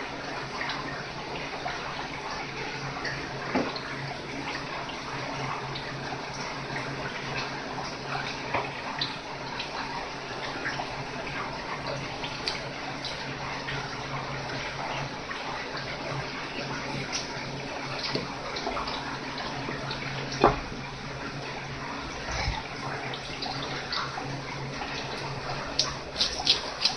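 Tap water running steadily onto a fish and a wooden cutting board, with scattered light clicks and knocks from handling and cutting, a sharper knock about twenty seconds in and a quick cluster of clicks near the end.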